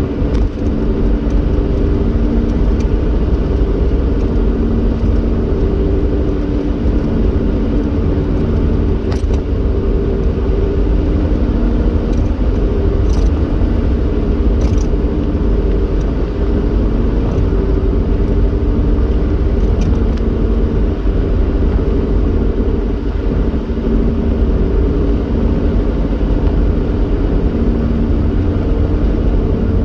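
Car driving along a paved road, heard from inside the cabin: a steady low rumble of tyre and engine noise with an even hum, and a few faint ticks around the middle.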